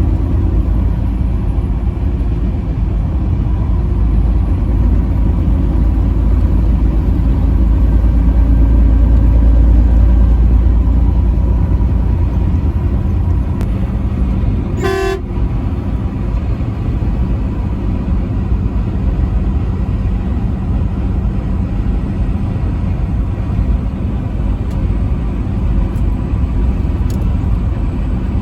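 Truck rumbling steadily down the highway, with a single short truck horn blast about halfway through.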